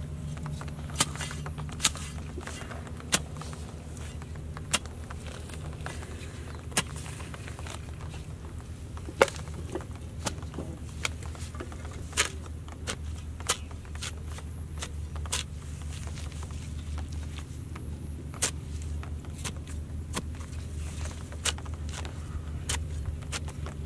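A digging tool's blade striking and cutting into wet, grassy soil in sharp, irregular strokes, one every second or two, the loudest about nine seconds in, over a steady low hum.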